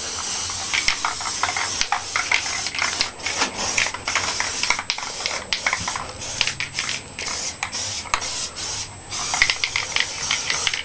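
Aerosol spray paint can hissing as it sprays: one longer pass at first, then many short bursts with brief gaps between them.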